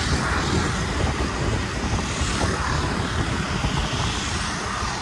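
Steady wind rumble and road noise from a moving vehicle driving on a wet road, with no distinct events.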